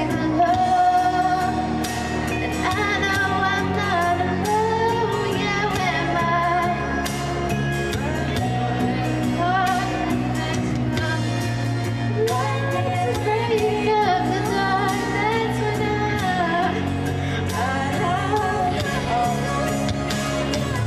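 Female singer performing a pop ballad over steady instrumental accompaniment.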